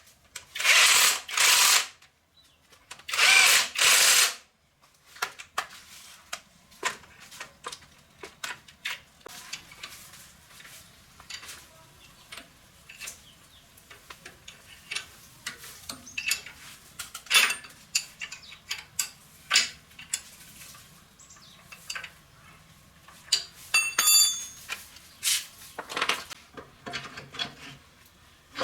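Workshop tool sounds during engine repair. Near the start come two loud hissing bursts of about a second each, from a power tool or a blast of air. Then come many scattered clicks, knocks and clinks of tools and metal parts being handled.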